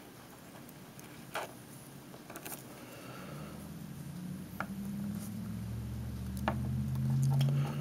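Faint clicks and light handling noise of fingers wrapping the bared copper strands of a stranded wire around another wire. A low hum swells in the second half and grows louder toward the end.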